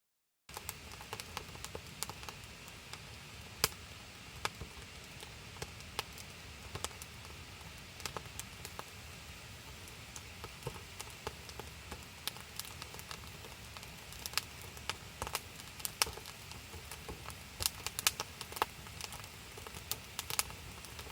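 Wood campfire crackling: irregular sharp pops and snaps over a steady low background noise, coming more often in the second half.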